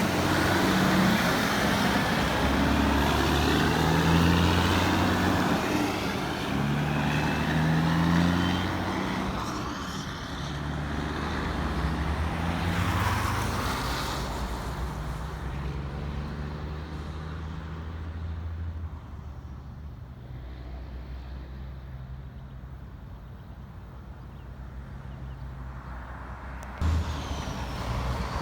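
Heavy diesel trucks on the road, the loudest one's engine pitch changing in steps over the first dozen seconds, then fading to quieter traffic. A sudden louder sound cuts in near the end.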